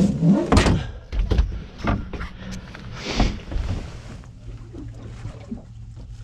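Irregular knocks, thumps and rustling as a dentex is handled and worked out of a landing net on a boat deck, the loudest bumps in the first second and a brief scraping hiss around three seconds in. A steady low hum runs underneath.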